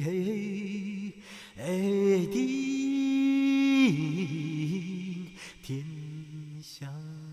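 Unaccompanied solo voice singing slow, long-held notes with a slight waver. It pauses briefly about a second in, then rises to a higher note held for about a second and a half before falling back.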